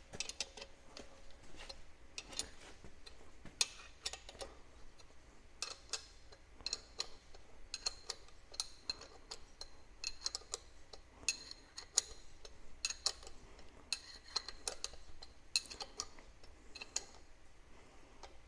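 Hand ratchet clicking in short, irregular runs of sharp metallic ticks as bolts are tightened on a four-wheel-drive adapter housing on a TH350 automatic transmission.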